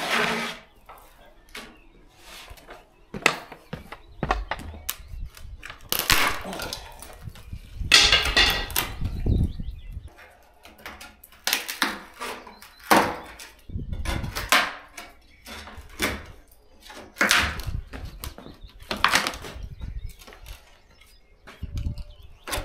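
Old wooden door frame being knocked and levered out of a doorway: irregular knocks, with cracking and scraping of timber as it comes away.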